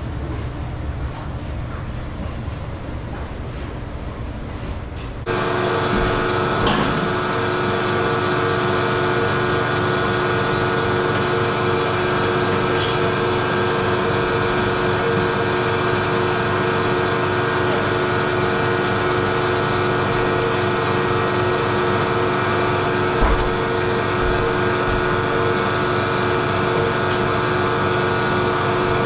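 Rough, noisy farm-machine sound that cuts abruptly about five seconds in to a louder, steady engine hum with several held tones, running unchanged, with one brief knock about three-quarters of the way through.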